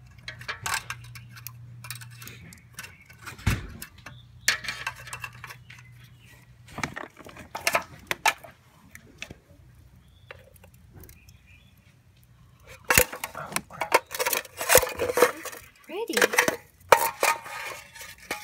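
Steel tongs clinking and scraping against a tin-can crucible and the galvanized bucket furnace as the crucible of molten aluminum is lifted out and poured into a sand mould. The clinks come thickest about two-thirds of the way through. A low steady hum runs under the first several seconds and then stops.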